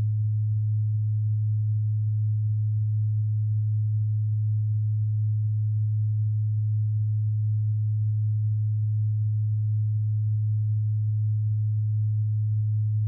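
A steady, unwavering low electronic sine tone, a pure hum-like pitch with faint higher overtones, played as a 'healing frequency' track.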